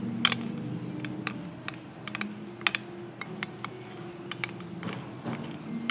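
Light, irregular clicks and taps of utensils against dishes during food preparation, over a low background hum.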